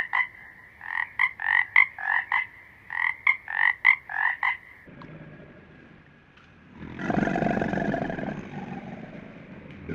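A frog croaking in quick runs of three or four short croaks for roughly the first four and a half seconds. About seven seconds in, a louder, rough, low sound begins.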